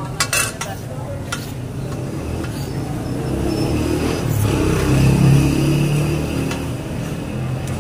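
Chops and onions sizzling on a large flat iron griddle, with steel spatulas clinking and scraping on the metal a few times. A low rumble swells in the middle and fades.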